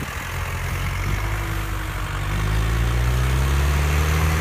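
Diesel engine of a farm machine running, then revving up about two seconds in, rising in pitch and growing louder.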